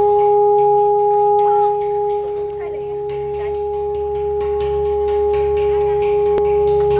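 Large hanging gong being rubbed on its central boss by hand so that it sings: a steady, unbroken hum with a fainter tone an octave above it. The hum dips a little about two seconds in and then swells back.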